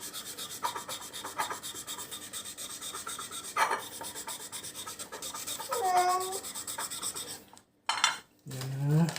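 Continuous rubbing and scraping noise, with a knock about three and a half seconds in, then a hurt cat's meow about six seconds in and another cry starting just before the end. The cat is crying in pain after being bitten by something, which the owner takes to be a venomous animal.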